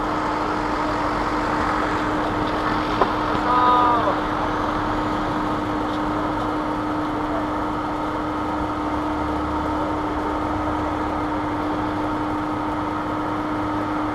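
Steady din of road traffic passing on the adjacent road, with a constant low hum. A sharp click about three seconds in, then a brief pitched call lasting under a second.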